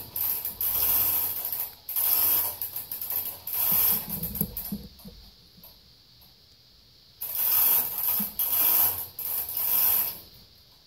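Reamer cutting out the valve guide bore in the cast-iron head of a John Deere 3 HP hit-miss engine: a rasping, ratcheting metal-on-metal sound in bursts, with a pause of about two seconds around the middle.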